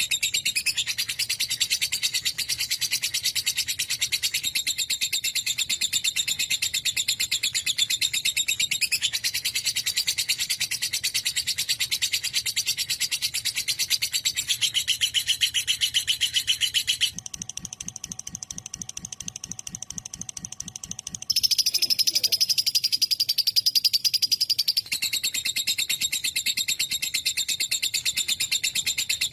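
Fischer's lovebirds chattering in a dense stream of rapid, high-pitched chirps. The chatter drops quieter for a few seconds past the middle, then comes back louder.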